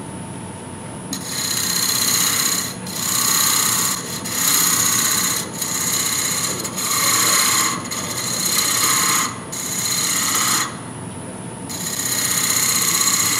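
Hand-held woodturning tool cutting a spinning wooden bell blank on a lathe, shearing off long shavings with a hiss in about eight passes, each about a second long with short breaks between them, as the bell's flared end is shaped.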